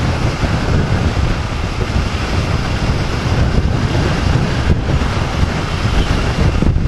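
Steady wind rush buffeting the microphone of a motorcycle riding at about 60 km/h, with the ride's road noise underneath.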